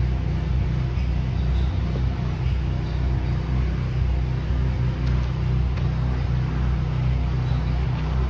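An engine running steadily at one constant speed, a low droning hum with no change in pitch, with a couple of faint clicks about five and six seconds in.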